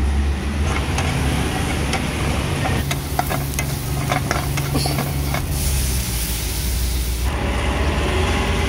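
Steady low rumble of road traffic under a frying hiss, with a quick run of sharp metal utensil clinks a few seconds in.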